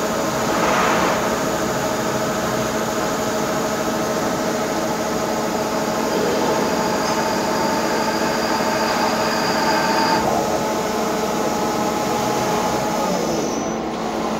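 CNC lathe running through a center-drilling cycle: a steady machine hum with several held tones, a high whine among them cutting off about ten seconds in.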